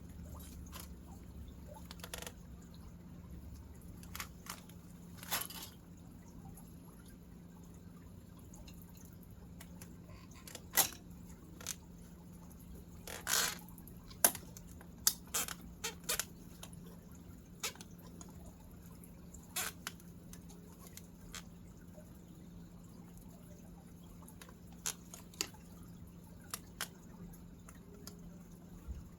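Scattered light clicks and knocks at irregular intervals, a few sharper ones in the middle, over a steady low hum.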